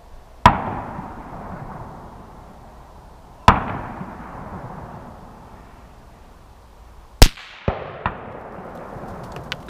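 Three AR-15 rifle shots fired about three to four seconds apart, the slow aimed fire of a group at long range, each followed by a long rolling echo. Two fainter reports come just after the third shot.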